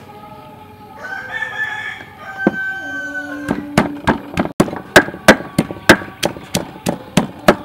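A rooster crows about a second in. Then, from about three and a half seconds, a wooden pestle pounds red chillies in a wooden mortar in steady, loud knocks, about three strikes a second.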